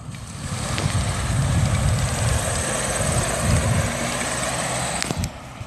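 A 1996 Nissan XE pickup with a 2.4-litre four-cylinder gas engine driving past at road speed, mostly tyre and road noise with a low engine rumble, building over the first second. The sound breaks off suddenly about five seconds in.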